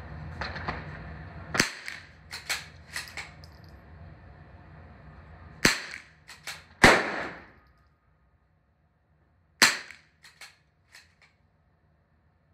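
.22 LR bolt-action rimfire rifle firing three shots about four seconds apart, each a sharp crack. Between the shots come sharp clicks and clacks of the rifle being worked, one of them louder than the shots, about a second after the second shot.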